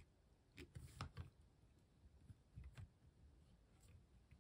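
Faint clicks of plastic Lego pieces being pressed into place on a brick-built model car, a few soft clicks in two short clusters amid near silence.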